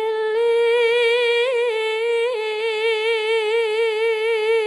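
A sinden's voice holding one long sung note into a microphone, with a steady vibrato and two small upward turns about a second and a half and two and a half seconds in.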